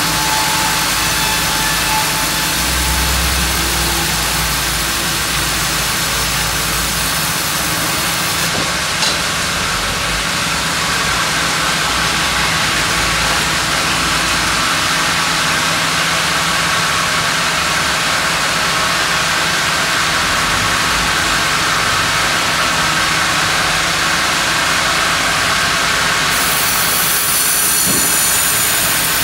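Sawmill carriage band saw running and ripping a slab off a monkeypod (rain tree) log, a loud, steady machine noise. The highest hiss drops away about eight seconds in and comes back near the end.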